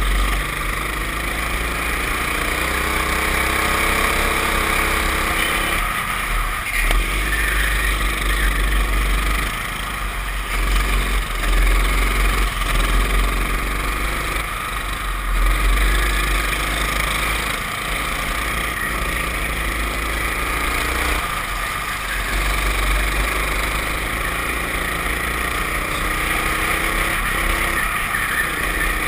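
Racing go-kart engine heard from an onboard camera, its pitch rising and falling repeatedly as the kart accelerates and lifts through the corners, over a heavy low rumble of wind on the microphone.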